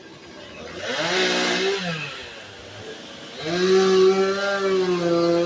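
Chainsaw engine revved twice: a short burst about a second in that rises and falls in pitch, then a longer one from about three and a half seconds that holds at high speed.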